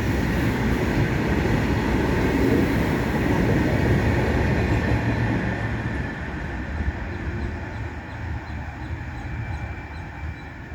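Freight train running past at speed: a loud rumble of wheels on rail, loudest about four seconds in, then fading as it draws away.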